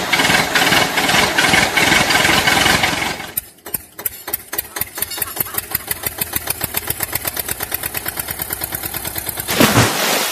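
An engine running loudly for about three seconds, then dropping to a steady idling putter of about six beats a second, with a short louder burst near the end.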